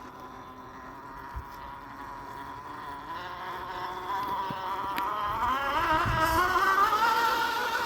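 Axial SCX10 II RC crawler's electric motor and geared drivetrain whining. It gets louder through the second half, with a wavering pitch that rises.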